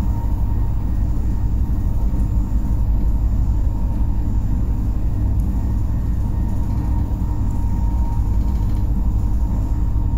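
2011 Pesa Elf 27WE electric multiple unit running along the line: a steady low rumble of the train in motion with a faint constant whine.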